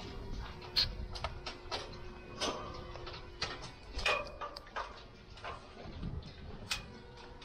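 Irregular light clicks and knocks of rigging work: cables and their connectors being pulled and handled against an aluminium lighting truss.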